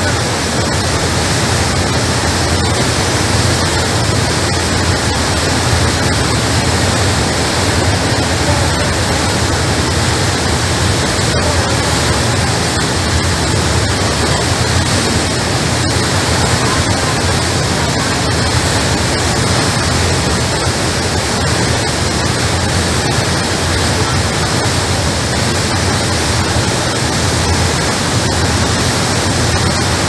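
Steady, loud rush of a fast boat's churning white wake water, with a low steady drone underneath.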